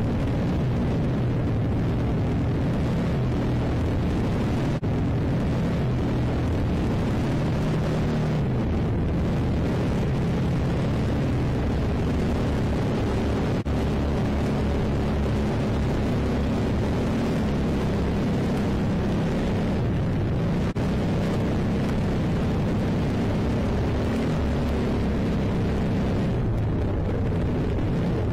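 Onboard sound of an off-road trophy kart's engine running hard through a race start: a loud, rough, steady rumble whose pitch drifts up and down as the throttle changes.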